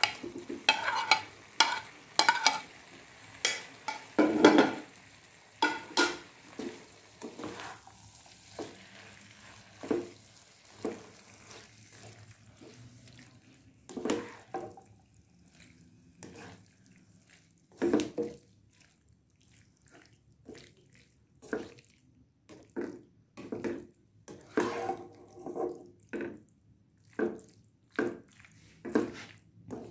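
A spatula scraping and knocking against a plate and a nonstick pan as boiled penne is pushed into the pan and stirred into a thick vegetable sauce, in irregular strokes with a sparser stretch in the middle.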